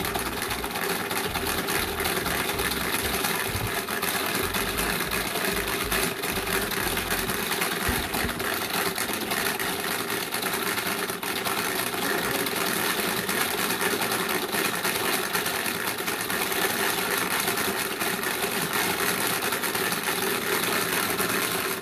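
Crayola Paint Maker's motor shaking a bottle of base paint and dissolving colour strips to mix the paint: a steady, noisy mechanical buzz.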